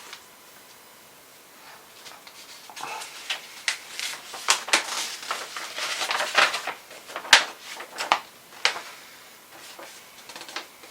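Hands handling computer parts and their packaging on a desk: a run of sharp plastic clicks, taps and rustles that starts about two seconds in and is busiest in the middle.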